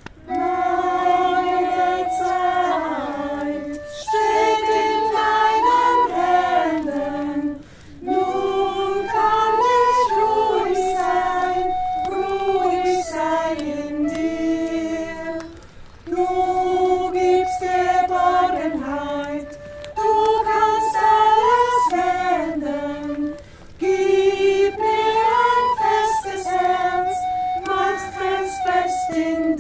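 A small group of voices, mostly female, singing a song together in phrases of about four seconds, with a short break for breath between phrases.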